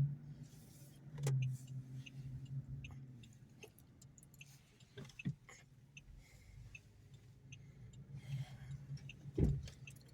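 Car engine running with a steady low hum, heard from inside the cabin, with scattered small clicks and one sharper knock near the end.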